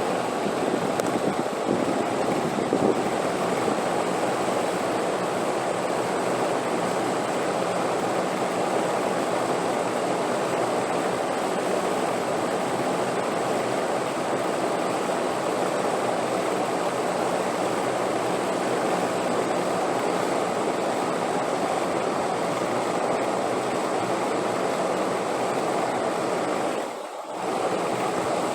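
Steady rushing wind noise, even and unbroken, with a faint thin high tone above it. The level briefly dips near the end and then comes back.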